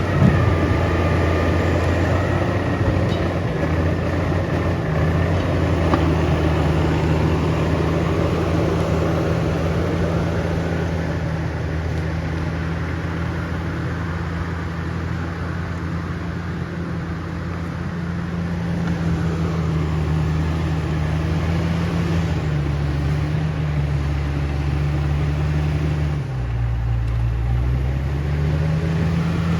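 Komatsu D68ESS bulldozer's diesel engine running steadily with a low hum, with a short knock right at the start. About two-thirds of the way through the engine speed drops in two steps, then rises back near the end.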